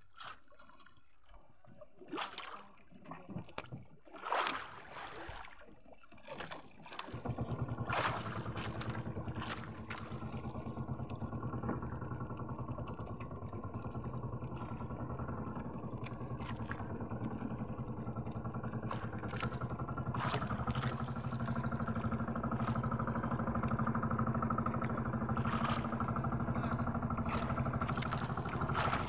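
A few scattered knocks and clatter, then about seven seconds in a small fishing boat's motor comes on abruptly and runs steadily, getting a little louder about twenty seconds in.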